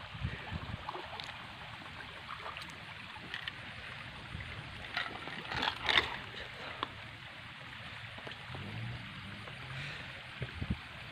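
Water sloshing and splashing around a person wading through shallow water, with a few sharper splashes about five to six seconds in.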